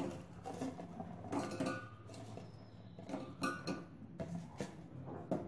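A string of light knocks and clinks on a stainless steel pot as fried gulab jamun balls are dropped by hand into sugar syrup, a few of them ringing briefly.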